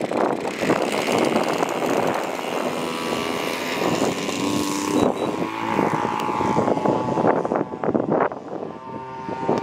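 DLE 40 cc horizontally opposed twin gasoline engine of a large RC aerobatic plane, running at high throttle through stock barrel mufflers with add-on silencers as the plane takes off and climbs away. The note is lower and milder than the high-pitched sound of the plain mufflers.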